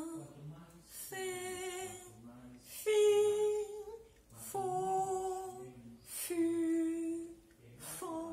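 A woman's voice slowly chanting French f-syllables for a phonics warm-up: the end of "fa", then "fé", "fi", "fo", "fu" and the nasal "fon". Each is a breathy "f" hiss followed by a long held vowel, one every second and a half to two seconds.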